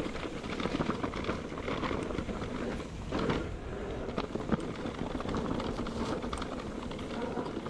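Mountain bike rolling over a rough trail: irregular clicks and knocks from the bike rattling over the ground, over a steady rumble of tyre and wind noise.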